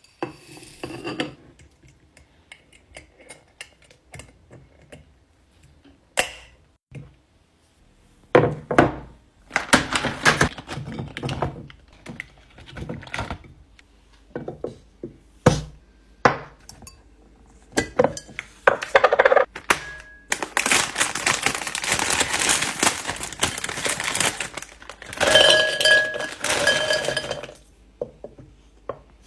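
Fridge restocking: repeated thunks, knocks and clinks of drinks and snack containers being set down and arranged on shelves, with a few seconds of continuous rustling a little past the middle.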